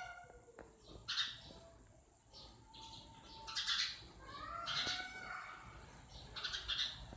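House sparrows chirping, with short chirps coming about once a second. Two lower, drawn-out, slightly rising calls are mixed in, one near the start and one about five seconds in.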